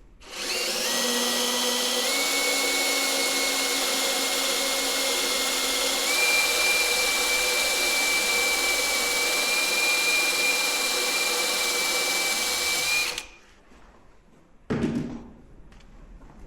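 Electric drill running steadily for about thirteen seconds, drilling a hole to screw the metal hoop to a whisky barrel, its whine stepping up slightly in pitch twice before it stops. A brief knock follows near the end.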